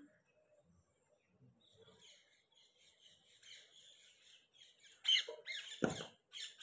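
Small birds chirping faintly. About five seconds in, a few loud, harsh sounds and a single thump.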